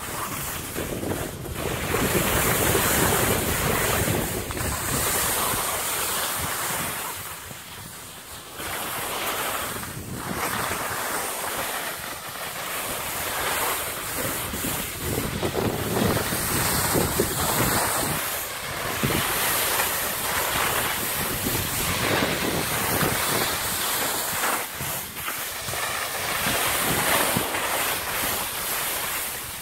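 Wind rushing over the microphone of a moving skier, mixed with skis hissing and scraping over packed snow, the noise swelling and easing every few seconds.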